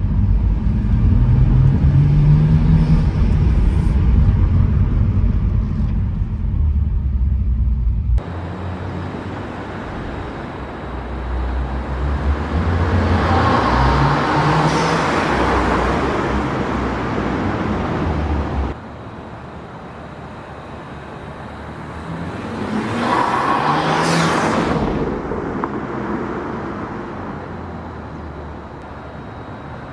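Turbocharged BMW N55 inline-six in a 2014 335i with an aftermarket CTS Turbo intake, accelerating in three separate edited clips. The first has a loud engine note rising in pitch. In the second and third the sound swells to a peak and fades away.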